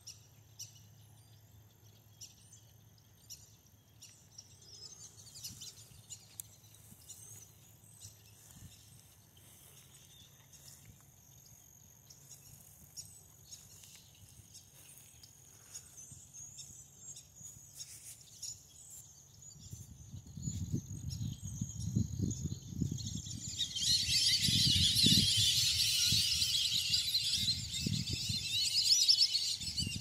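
A flock of ducks flushing into flight: faint scattered bird chirps at first, then low rumbling thumps about two-thirds of the way in, and a loud dense rush of wings and calls near the end.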